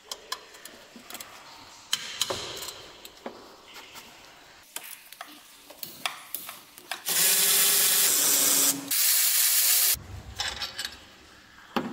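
Power tool with a 12 mm socket running in two bursts, the first about a second and a half and the second about a second, starting about seven seconds in, undoing a bolt in the engine bay. Before and after the bursts come scattered metal clicks and taps of tool handling.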